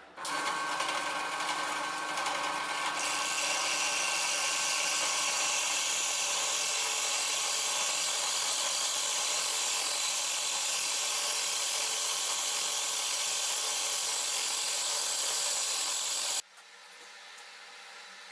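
Cheap bench drill press running as a mill, its small milling bit cutting into a lock on a cross-slide table: a steady motor whine mixed with bright, high-pitched cutting noise. It stops abruptly near the end.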